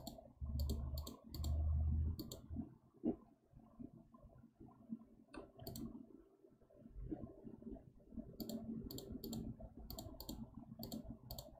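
Computer mouse buttons clicking: a few scattered clicks, then a quick run of about ten near the end. Low, muffled bumps in the first two seconds.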